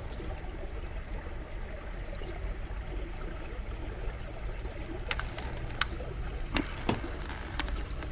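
Honda CBX550F inline-four engine idling with a homemade silencer fitted: a low steady rumble. A few light clicks come about five to seven and a half seconds in.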